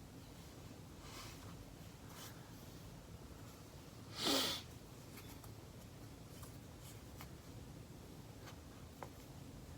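A steady low air-conditioner hum with a few faint ticks and rustles, and about four seconds in one short, sharp breath through the nose, much louder than the rest.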